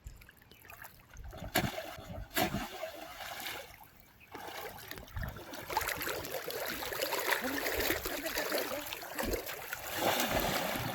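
Water splashing and sloshing, growing louder about halfway through, with a couple of sharp knocks early on.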